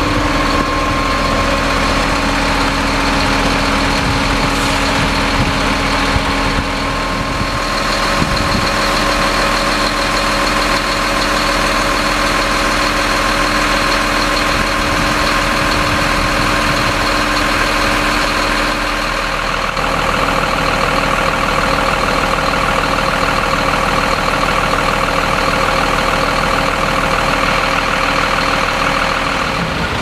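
Heavy truck diesel engine running steadily at a construction site. About two-thirds of the way through the sound changes and takes on a rapid pulsing.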